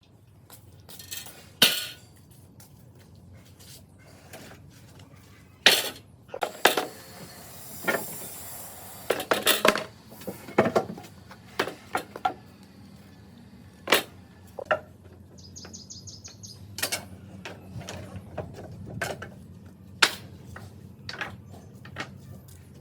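Irregular knocks, clacks and clinks of wooden boards and tools being handled, with a faint steady low hum underneath.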